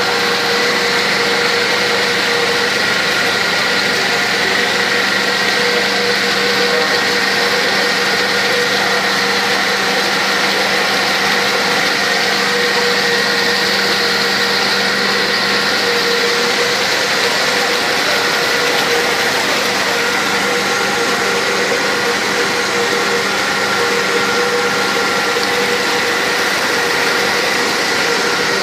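Paper-making machine running steadily: a loud, even machinery noise with a constant hum and a higher whine that do not change.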